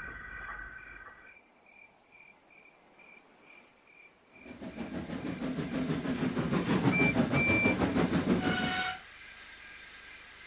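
Steam locomotive sound effect: a faint, even ticking gives way about four seconds in to loud, rapid chuffing. Two short high peeps sound during the chuffing, then a brief whistle, and the chuffing cuts off suddenly near the end, leaving a low hum.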